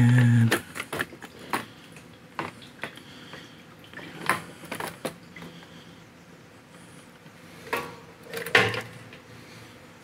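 Scattered light clicks and knocks of hard plastic parts as a fuel pump module is handled out of a plastic fuel tank's opening, with a few louder knocks about halfway and near the end.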